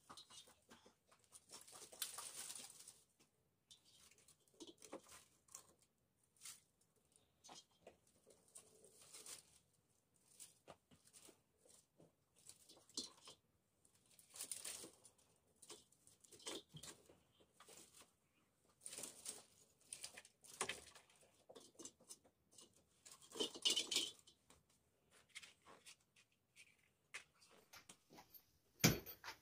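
Dry twigs and brushwood rustling and snapping as they are handled and laid into a clay hearth, in faint irregular bursts, with one sharp crack near the end that is the loudest sound.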